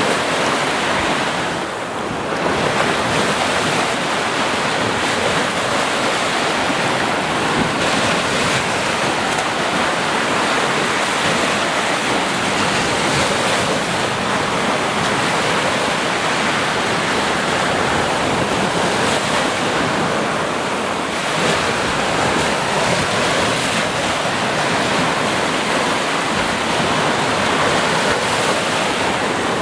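Ocean waves washing onto a beach in a continuous, steady surf, with small swells and a short lull about two seconds in.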